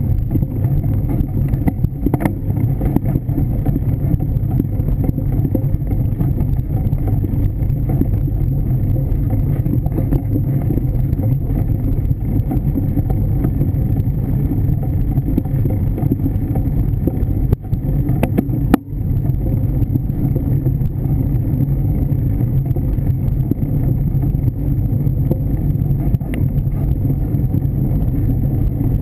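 Mountain bike riding over a leaf-covered dirt trail: a steady low rumble of tyres and frame vibration, with a few sharp knocks from bumps.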